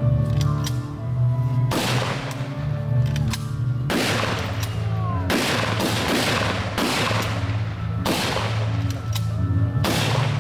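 Blank rounds fired from two M1 Garand semi-automatic rifles, single shots a second or two apart, each with a sharp crack and a short echo.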